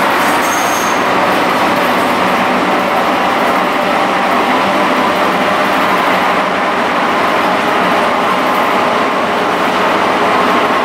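Steady running noise heard inside an old electric railcar in motion: the rumble of its wheels on the rails and its running gear, with a faint steady whine through it and a brief high squeak just after the start.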